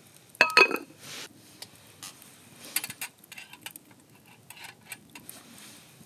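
Camp cookware clinking: two sharp, ringing metal clinks about half a second in, followed by lighter scattered taps and clicks as the pot and utensils are handled.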